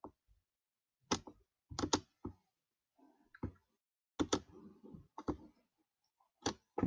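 Computer mouse button clicking: about ten short, sharp clicks at irregular spacing, some in quick pairs.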